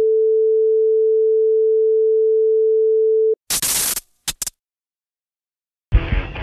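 Steady pure test tone of a colour-bar card for about three seconds, cut off abruptly and followed by three short bursts of static hiss. After a short silence, the band music starts near the end with drums and guitar.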